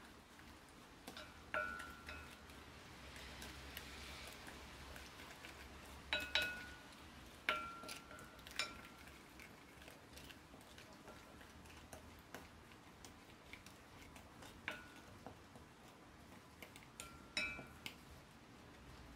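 A spoon stirring a thick chili-paste sauce in a glass bowl, with a handful of irregular clinks as it knocks the glass, each leaving a brief ringing tone.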